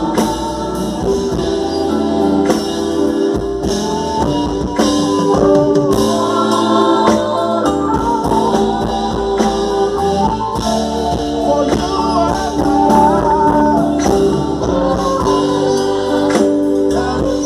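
Gospel music: singers over a live band with a steady drum beat, as at a praise-team sound check.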